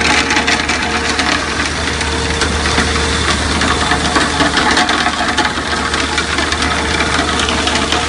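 Tyre-driven rotary drum scrubber washer for alluvial tin ore running: a loud, steady machinery noise with a constant hum and scattered small knocks.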